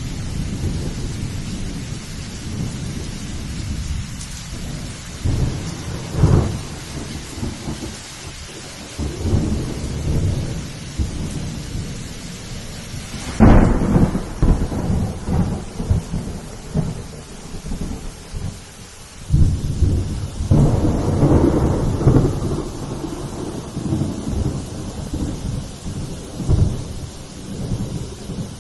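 Thunderstorm: steady rain hissing, with repeated low rolls of thunder. The loudest is a sudden clap about halfway through, followed by another long roll a few seconds later.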